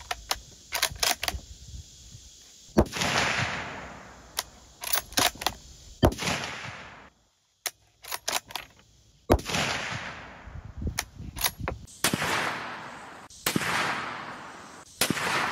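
Several rifle shots from a 350 Legend Ruger American Ranch bolt-action rifle, about five in all, each a sharp crack followed by a long rolling echo. Between the shots there are short sharp clicks of the bolt being worked.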